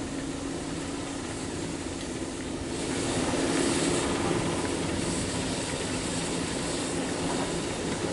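BR Class 08 diesel shunter's engine running as the locomotive moves slowly past hauling a wagon: a steady low drone that grows louder about three seconds in as it draws level, with a steady hiss over it.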